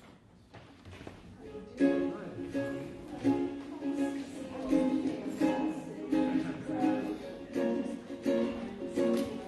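Ukulele strumming chords in a steady rhythm, starting about two seconds in after a near-quiet moment.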